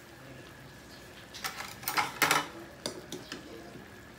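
Metal spoon knocking and scraping against a metal pan while turning chicken wings simmering in sauce: a cluster of loud clatters a bit under two seconds in, then a few lighter taps, over faint simmering.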